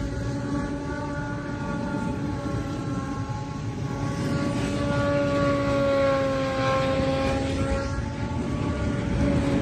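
Freight train passing close by: a steady low rumble of wagon wheels on the rails, with a held, slightly wavering pitched drone over it.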